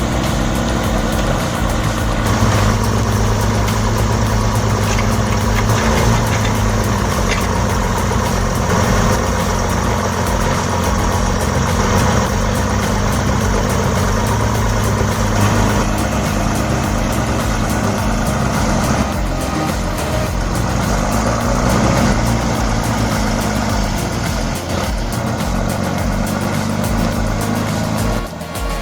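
Heavy diesel engine of a forestry harvester running steadily.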